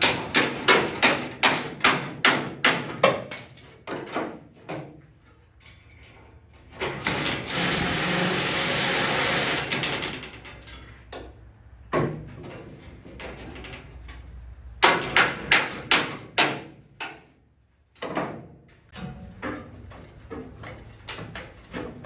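Hammer blows on sheet-steel car body panel in quick runs, about three strikes a second, then another run partway through and lighter taps near the end. In between, a steady hissing noise lasts about three seconds.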